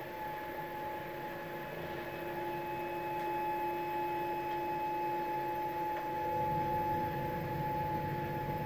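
Stepper motor of a 3D-printed antenna positioner turning the antenna mount at a constant step rate: a steady, high-pitched electrical whine made of several fixed tones.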